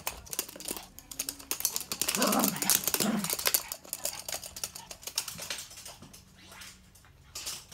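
Toy poodle's claws clicking and scrabbling on a hard wooden floor, with a short dog vocal sound about two seconds in, the loudest part.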